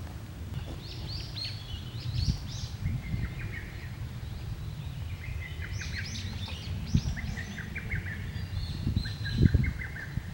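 Small birds chirping in quick bursts of short, high notes, three bursts in all, over a steady low rumble, with a couple of dull thumps near the end.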